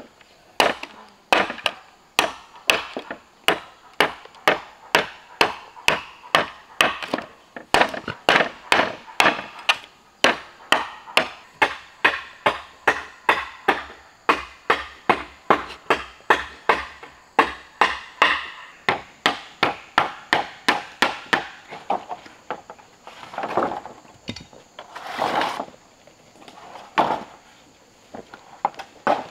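Rapid, regular strikes on wood, about two to three a second, like chopping or hammering, for some twenty seconds. After that come a few slower, scattered knocks and scrapes.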